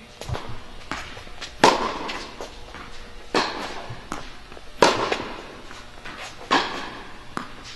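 Tennis balls struck with rackets in a rally on an indoor court: four sharp, echoing hits about every second and a half, with fainter knocks in between.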